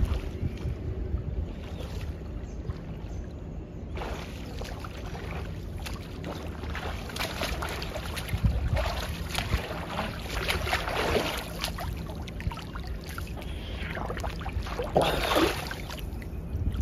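Water splashing from a front-crawl swimmer's arm strokes and kicks in a pool, irregular and growing busier as the swimmer comes closer, with a louder rush of water near the end as he stands up. A steady low wind rumble on the microphone sits underneath.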